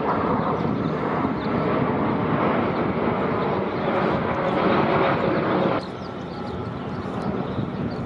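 Steady rushing engine noise from the outdoors, loud for the first six seconds, then dropping suddenly to a quieter, even background.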